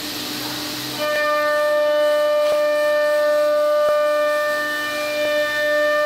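CNC router spindle running with a steady high-pitched whine. A louder whine joins about a second in, with a couple of faint clicks after it.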